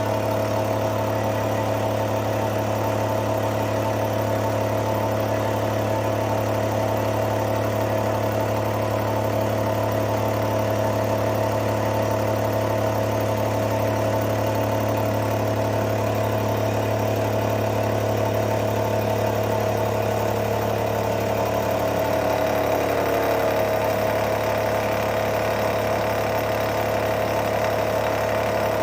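Milling machine taking a face-milling pass about 40 thou deep at roughly 500 rpm: a steady motor hum with a constant cutting tone. About three-quarters of the way through, one tone slides slightly lower.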